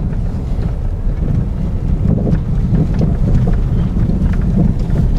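Car rolling along a rough gravel road, heard from inside the cabin: a steady low rumble of tyres and engine, with scattered small clicks of stones under the tyres.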